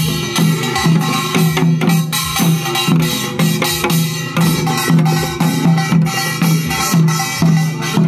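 Korean farmers' dance (nongak) music, with drums and percussion playing a brisk, steady rhythm.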